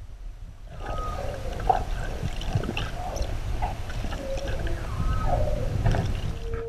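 Underwater sound picked up by a camera just below the surface: a steady low rumble of moving water, joined about a second in by many short squeaks, chirps and clicks.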